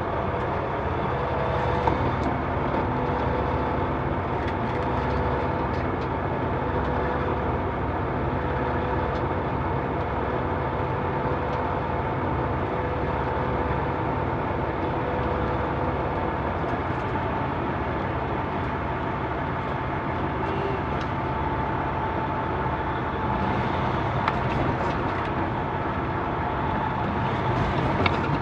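Semi-truck diesel engine running steadily at low speed, heard from inside the cab: an even drone with a couple of steady humming tones and a few small clicks.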